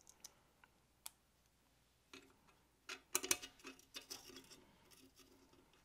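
Quiet, scattered small metal clicks and taps from handling small screws and a hex key against an aluminum rifle handguard. A denser run of clicks and light rattles starts about two seconds in and is loudest about a second later.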